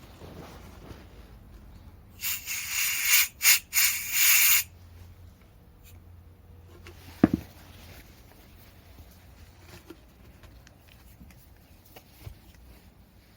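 Several short, loud bursts of hissing spray in quick succession, then a single sharp knock a few seconds later.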